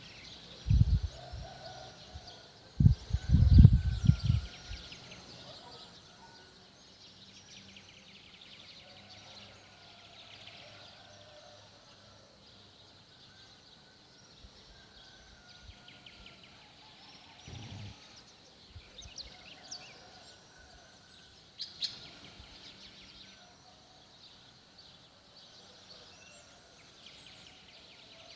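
Several birds singing faintly throughout, with high trills and chirps and one louder chirp about two-thirds of the way through. In the first five seconds a few loud, low rumbles stand over the birdsong.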